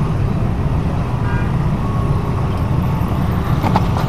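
Dense motorcycle and car traffic, a steady low rumble of many small engines moving off and passing over a railway level crossing.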